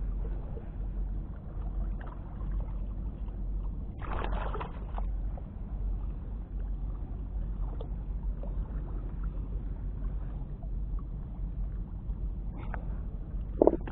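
Harbour water sloshing and washing among wet pier rocks at the water's edge, with a louder surge about four seconds in and a sudden loud burst near the end.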